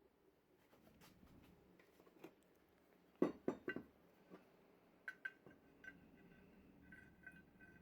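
Hard objects being handled: a few sharp knocks about three seconds in, then light clinks with a short ringing tone in the second half.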